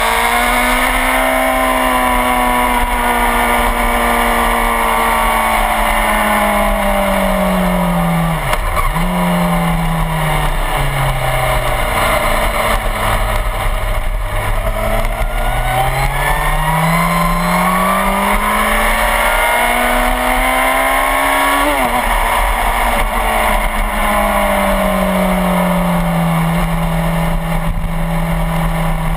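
Suzuki GSX-R1000 sportbike's inline-four engine at racing speed, its pitch climbing and sagging slowly through the corners, with two brief sharp dips about a third of the way in and again about three-quarters through. Wind rushes steadily over the microphone.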